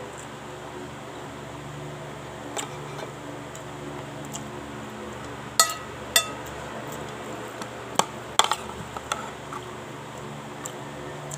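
Steel spoon clinking and scraping against a ceramic plate while scooping rice: a string of sharp metallic clinks, the loudest two about half a second apart midway and a quick cluster soon after, over a steady low hum.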